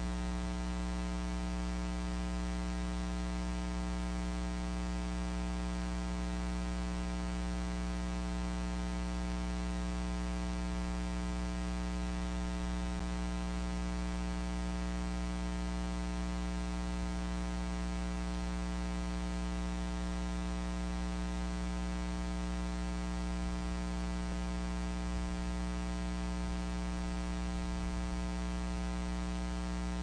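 Steady electrical mains hum on the nest camera's audio line: a low buzz with many evenly spaced overtones over a faint hiss, unchanging.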